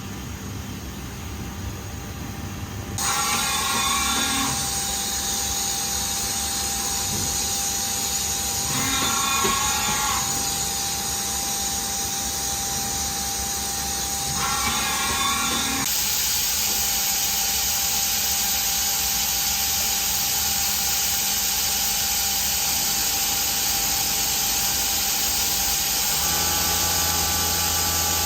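Makino SNC64-A5 graphite machining centre running under power: a loud, steady high-pitched whine and hiss from the machine. There are three short pulsing bursts, a shift in the high tone about halfway through, and a low hum with steady tones joining near the end.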